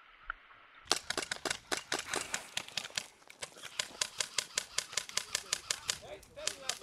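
A rapid, irregular run of sharp airsoft gun shots, several a second, starting about a second in, with a voice briefly heard near the end.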